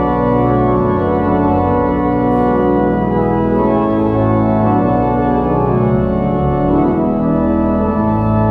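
Organ playing slow music of sustained, held chords that change every second or so.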